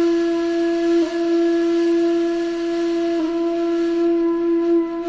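A long, steady flute-like tone held on one note: the TikTok trend sound played to cats. Its pitch dips slightly about a second in and again about three seconds in.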